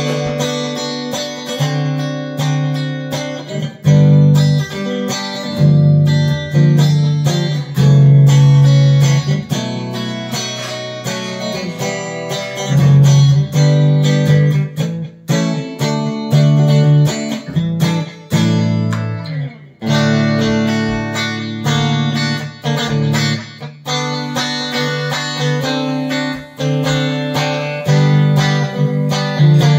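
Harley Benton Fusion-II electric guitar with alnico pickups played: strummed chords and picked notes in phrases, with brief stops about 4, 15 and 20 seconds in.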